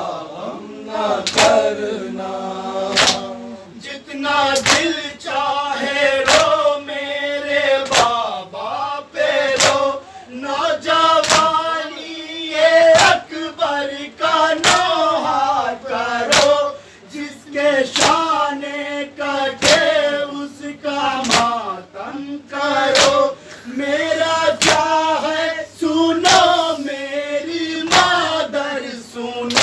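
A Shia noha (Muharram lament), sung by a male reciter on a microphone while a group of men chant along. Under it comes a steady beat of open-hand chest-beating (matam), sharp slaps about every second and a half.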